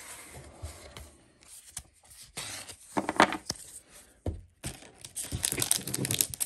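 Foil Pokémon booster pack wrappers crinkling and tearing as they are handled and opened, in two noisy stretches: a short one in the middle and a longer, denser one near the end.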